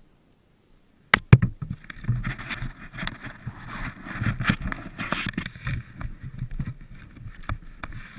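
Handling noise on a helmet-mounted camera: two sharp knocks about a second in, then irregular scraping, rubbing and bumping as hands work at the helmet close to the microphone.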